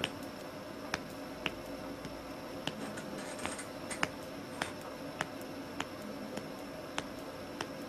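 Middle-finger knuckle joints cracking again and again: a dozen or so sharp single pops, about one every half second to second. A faint steady hum lies underneath.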